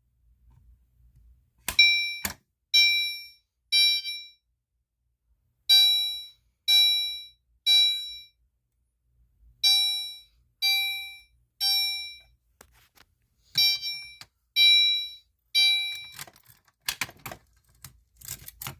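Gentex Commander 3 horn strobe set to its chime tone, sounding the code-3 (temporal-three) pattern: four rounds of three chimes about a second apart, each round about four seconds after the last. A sharp click of the pull station being pulled comes just before the first chime, and a few clicks and knocks follow near the end.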